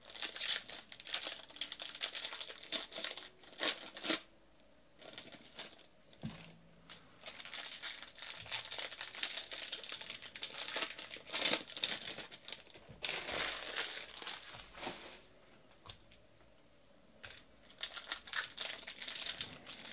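Foil trading-card pack wrappers being crinkled and torn open by hand, in stretches of rustling broken by short pauses about five seconds in and again about sixteen seconds in.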